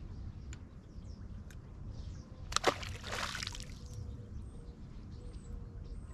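Water sloshing and lapping against a boat hull, with one short splash about two and a half seconds in. A faint steady hum follows the splash.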